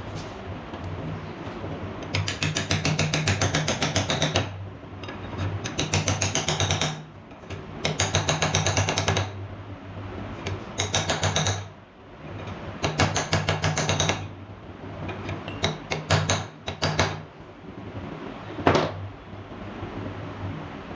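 Rapid metal-on-metal tapping in bursts of one to two seconds, six bursts with short pauses between, then a single sharp knock near the end, over a steady low hum.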